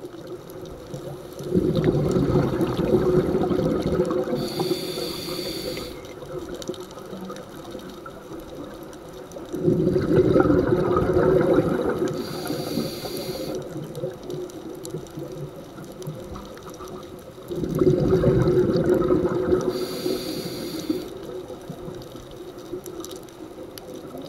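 Scuba regulator breathing recorded underwater: three slow breaths about eight seconds apart. Each is a rush of exhaled bubbles lasting a few seconds, followed by a short high hiss from the regulator.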